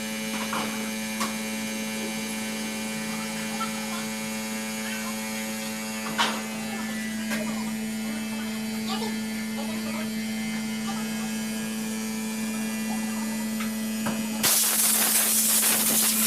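Steady electrical hum with small scattered clicks and clinks, as of transmission parts being handled. About 14 seconds in, a loud rushing hiss starts suddenly and continues.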